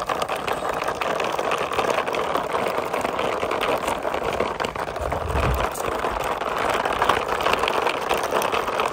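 Hard plastic wheels of a toy quad bike rolling steadily over rough concrete and brick, a continuous gritty rattle with a dull bump about five seconds in.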